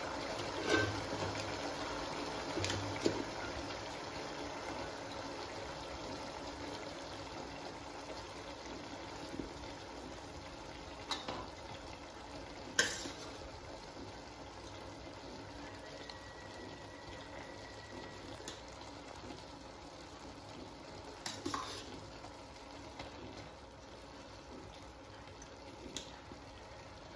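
Thick chicken gravy simmering in a pot, a steady bubbling hiss that slowly grows fainter as half-cooked rice is spooned over it. A handful of short taps from the serving spoon against the pot.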